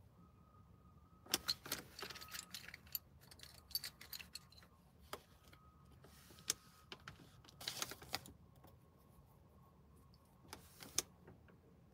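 Light jingling and clicking of small metal items being handled, in several short bursts, over a low steady hum inside a car.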